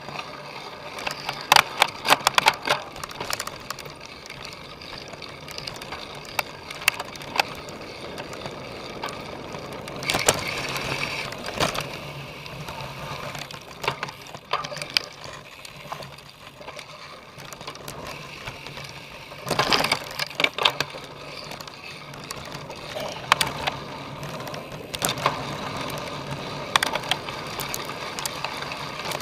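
Cyclocross bike ridden over rough ground: chain and frame rattling, with many sharp clicks and knocks. Two louder rushes of noise come about a third and two thirds of the way through.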